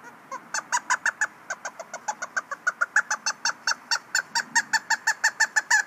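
Mouth-blown squirrel call giving a fast run of short chirping barks, about five or six a second, imitating the bark of an eastern gray or fox squirrel.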